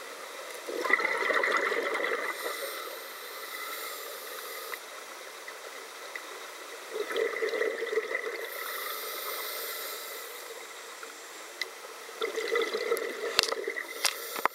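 Scuba diver breathing through a regulator underwater: three gurgling rounds of exhaled bubbles about five to six seconds apart, each followed by the hiss of an inhalation. Two sharp clicks near the end.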